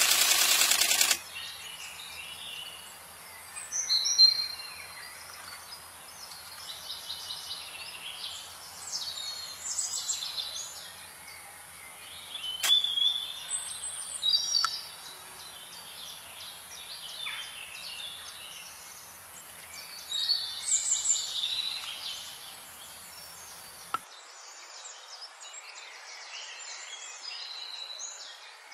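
Forest birds calling with varied chirps and whistles, over a steady high insect-like hiss and a faint low hum. A loud, harsh, dense sound fills the first second. About three quarters through, the hum cuts off suddenly and the background changes.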